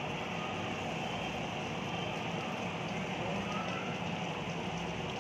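Butter and chopped onions sizzling steadily on a hot flat steel griddle.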